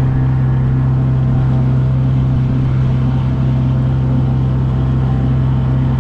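Motorboat engine running at a steady cruising speed, one even drone that holds its pitch throughout.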